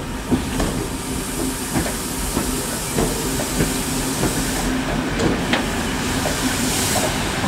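Class 52 steam locomotive rolling past tender-first, with a steady hiss of steam and a few short knocks from the running gear.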